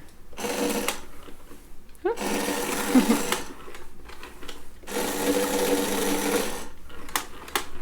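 Battery-powered toy vacuum cleaner's small motor whirring in three separate bursts as it is pushed along, the last and longest lasting nearly two seconds, with a few light plastic clicks near the end.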